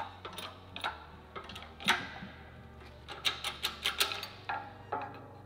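Metal gusset plate being handled, giving irregular light clinks and knocks, a few of them ringing briefly, over a low steady hum.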